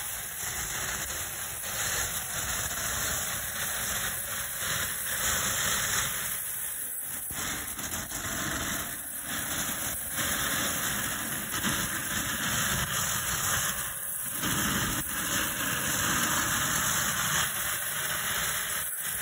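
A 1980s-era Black Cat Gold Glittering Flower fountain firework burning, with a steady hiss of spraying sparks.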